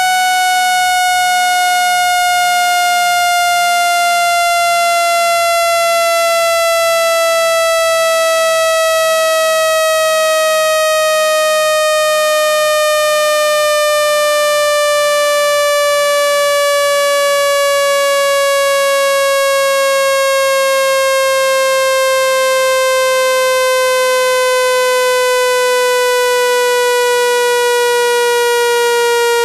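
Loud, buzzy synthetic speaker-cleaning tone, a single pitch with strong overtones sliding slowly and steadily downward, played to shake sand and dust out of a speaker grille.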